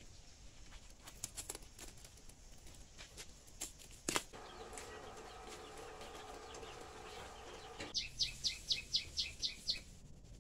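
A bird calling: a quick run of about nine high chirps, about five a second, near the end. Before it come scattered light clicks, then a steady hum with several overtones lasting about four seconds.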